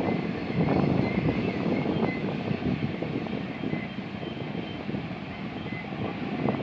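BNSF freight train's cars rolling along the track, a steady rumble of wheels on rail that swells and eases, with a faint, broken high-pitched tone over it.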